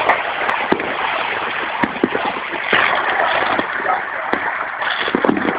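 Dense, continuous crackling of many firecrackers and fireworks going off at once, with single sharper bangs standing out now and then.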